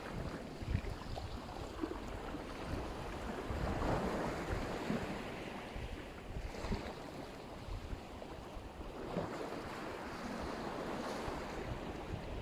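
Black Sea surf washing ashore, swelling with a wave about four seconds in and again later on. Wind buffets the microphone with a low rumble throughout.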